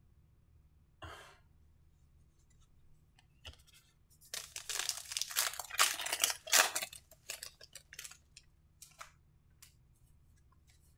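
A foil trading-card pack wrapper is torn open and crinkled for about three seconds. There is a brief rustle of card handling about a second in and a few light clicks near the end.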